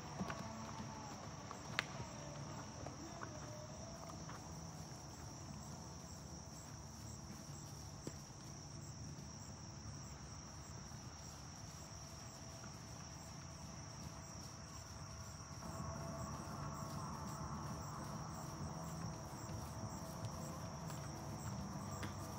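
An insect chorus, crickets trilling in a steady high pulsing band, with a faint low outdoor rumble underneath.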